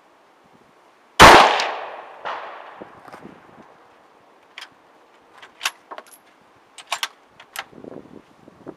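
A single shot from a CZ 750 bolt-action rifle in 7.62×51 NATO, very loud with a long fading echo, followed about a second later by a weaker bang. From about four and a half seconds in comes a run of short, sharp metallic clicks as the bolt is worked.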